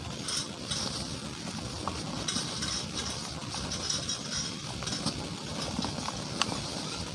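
Dry moulded cement crumbling as hands squeeze and crush it, with a gritty hiss of powder sifting down into a metal bowl. Small sharp snaps come through it, the clearest about six seconds in.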